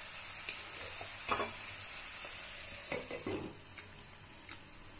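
Shallots and coconut pieces frying in coconut oil in a kadai, a steady sizzle. A knock about a second in, then clinks about three seconds in as a glass lid goes onto the pan, after which the sizzle is quieter under the lid.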